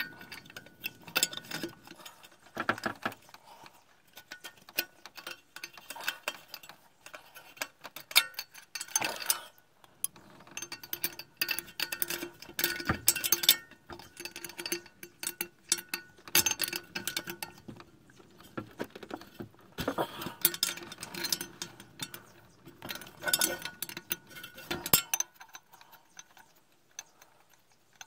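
Metal wrench clicking and clinking on the nuts that hold the clutch fan to the water pump pulley, as the nuts are undone. The ticks come in short bursts with pauses between, and stop a few seconds before the end.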